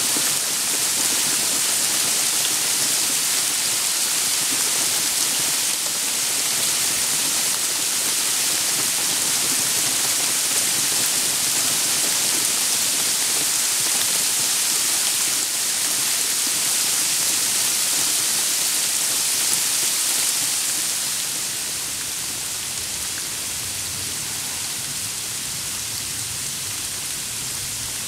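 Sleet and rain falling steadily on the leaves and ground of a forest, a dense even patter of drops. It turns a little quieter about 21 seconds in.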